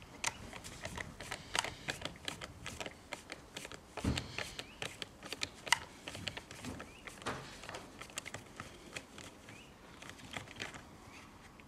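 Light clicks and taps of plastic and metal chainsaw parts handled and fitted back together by hand, coming irregularly with no engine running.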